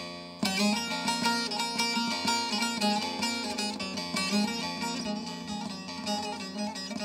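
Bağlama (saz), the long-necked Turkish lute, played solo in a quick run of plucked notes: an instrumental passage, with a brief break in the playing just before half a second in.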